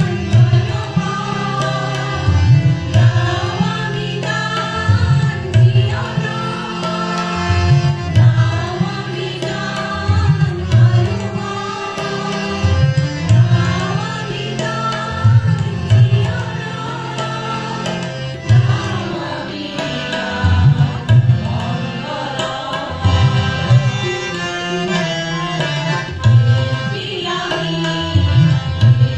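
A group of women singing a song together into stage microphones, backed by a drum playing a repeating rhythm of low strokes.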